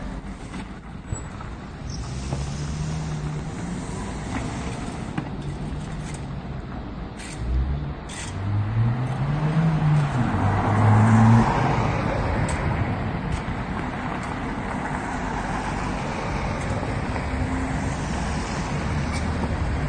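Street traffic with a steady low engine rumble whose pitch rises and falls. A car passes close by about halfway through, the loudest moment.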